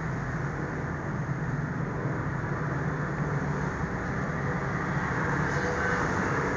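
Steady low background rumble with a low hum. It stays even throughout, with no distinct events.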